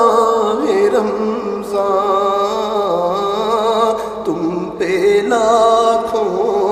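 A male voice singing an Urdu naat, a devotional farewell to Ramadan, drawing out long held notes with wavering melismatic ornaments. A low steady drone sits beneath the voice.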